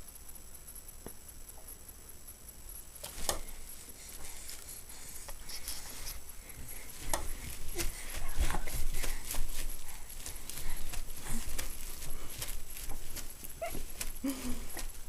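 A baby kicking and squirming: soft knocks, taps and rustles that come thicker after about five seconds.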